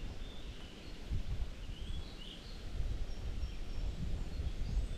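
Outdoor ambience: a gusting low rumble of wind on the microphone, with small birds chirping several times in short calls.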